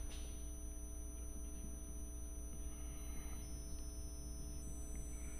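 Steady electrical mains hum with thin, constant whining tones from the recording setup. Faint scratching of a marker on a whiteboard comes through about halfway through and again near the end.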